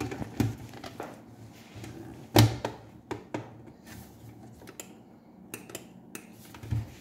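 Scattered plastic clicks and knocks of a lid and jar being fitted onto a small electric blender, the loudest about two and a half seconds in. No motor runs: the blender is not assembled right, which the users think is why it won't start.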